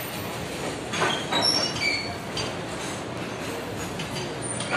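Loaded open freight wagons rolling past on the rails, with a steady rumble, several short high-pitched wheel squeals and a few sharp knocks about a second in.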